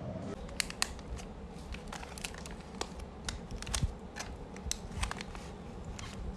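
Aluminium foil takeaway trays being handled, their foil-lined card lids crinkling and peeled open with irregular sharp crackles and clicks.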